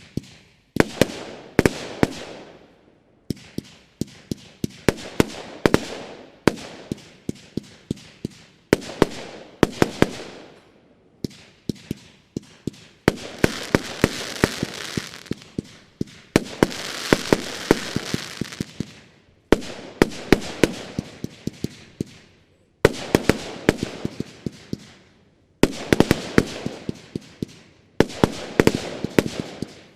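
Broeckhoff Backfire consumer firework battery firing: about a dozen volleys of sharp bangs, each trailing off in crackling, with short gaps between them.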